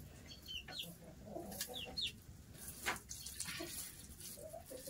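Faint calls of chickens: soft clucking with a few short, high, curving chirps, and a single click about three seconds in.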